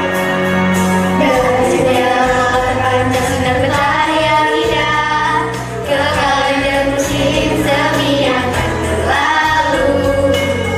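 A song with instrumental accompaniment; voices start singing about a second in and carry on over the music.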